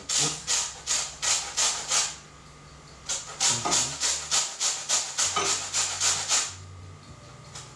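A lemon rubbed up and down a metal box grater, grating off its peel: a rasping stroke about three times a second, in two runs with a pause of about a second between them.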